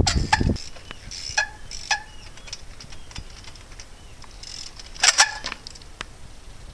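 Trials bicycle being hopped: short squeaks of the brakes together with sharp clicks and knocks from the bike, twice early on and in a louder burst about five seconds in. Wind rumbles on the microphone for the first half second.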